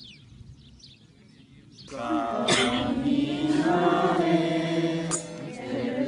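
Faint bird chirps, then about two seconds in a congregation of many voices starts singing a hymn together.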